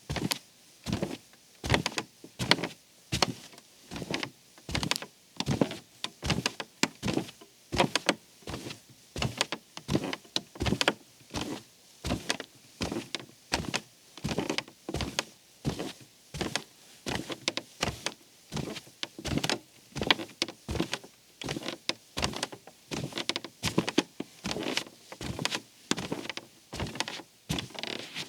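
Barefoot footsteps of a woman walking on a creaky rug, the floor creaking under each step, at a steady pace of about two steps a second.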